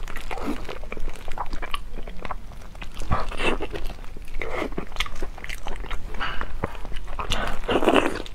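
Close-miked biting and chewing of crispy fried food: irregular crunches and crackles, busiest near the end.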